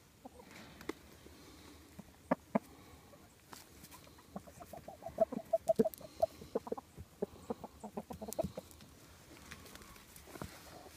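Chickens clucking in a quick run of short notes lasting about four seconds, starting a few seconds in, after two sharp taps.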